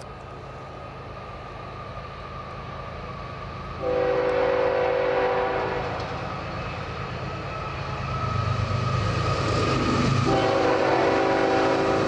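CN freight train's lead GE diesel locomotive approaching, its engine rumble growing louder, and sounding its multi-chime horn twice: a blast of about two seconds starting about four seconds in, and a second blast starting near the end.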